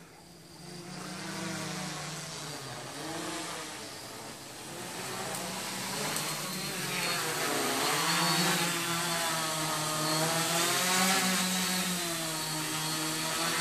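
Quadcopter's electric motors and propellers buzzing in flight, growing louder as it approaches, the pitch wavering as the motor speeds change.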